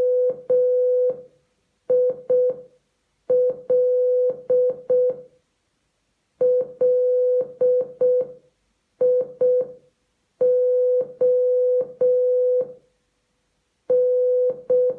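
Morse code beeps from an Amazon Echo smart speaker: one steady beep keyed into dots and dashes, spelling M-I-L-L-I-O-N ("million") as seven letter groups with short pauses between them.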